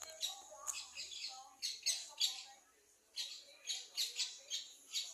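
Small birds chirping in quick runs of short, high notes, with a brief pause about halfway through.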